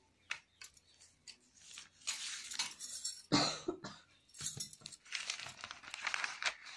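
Newspaper sheet rustling and crinkling as it is handled and lifted, in two stretches, with one short, sharp, louder sound a little past three seconds in.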